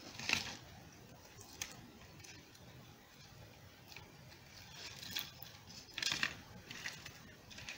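Dry twigs and plastic wrapping ribbon being handled as a bundle of three sticks is tied: faint rustling with short crinkles and clicks, the loudest just after the start and again about five to six seconds in.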